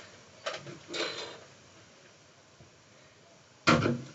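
Plastic clicks and slides of a Nerf blaster being handled, twice in the first second, then a louder sharp knock near the end.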